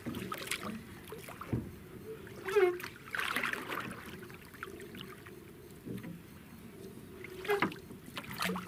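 Hand-hauling of a fishing hook line over the side of a wooden boat: scattered small knocks and handling noises, with a brief louder rustle about three seconds in.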